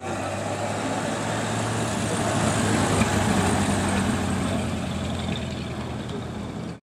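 Antique Ford Model A pickup driving slowly past, its four-cylinder engine running steadily. It is loudest as it passes about three seconds in, then eases off as it pulls away.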